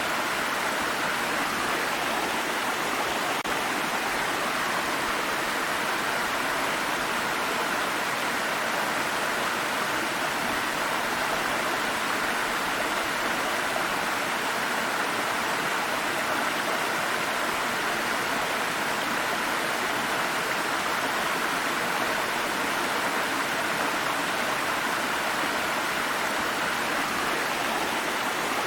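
Water stream flowing over rocks: a steady, unbroken rushing of water.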